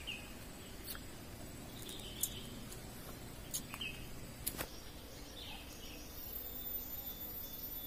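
Quiet forest ambience: faint short bird chirps every second or two over a steady outdoor hiss, with a few sharp clicks. A thin, high steady tone comes in about six seconds in.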